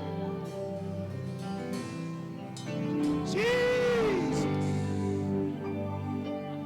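Slow instrumental worship music with sustained chords, and a single pitched tone that rises and falls about three and a half seconds in.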